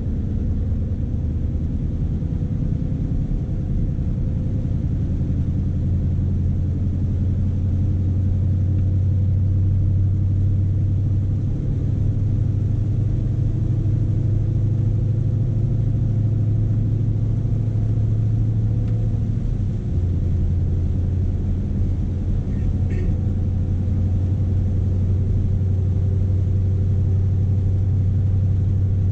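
Scania S520's V8 diesel engine running with a steady low drone, heard from inside the cab. The engine note shifts slightly about 12 and 20 seconds in, and a brief faint click comes just after 22 seconds.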